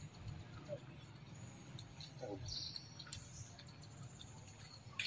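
A few short, faint, high-pitched animal squeaks and chirps, bunched about two and a half to three seconds in, over a steady low background rumble.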